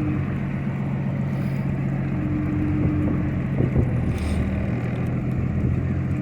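Fishing boat's engine running with a steady low hum, its note shifting slightly about four seconds in.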